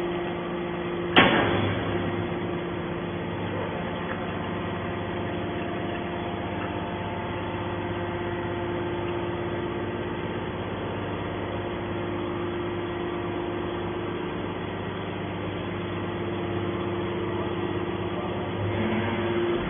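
Automatic hydraulic scrap metal baler running with a steady hum, with one sharp bang about a second in.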